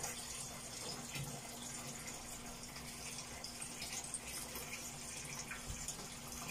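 Tap water running steadily into a washing machine tub as it fills, with a faint steady hum underneath.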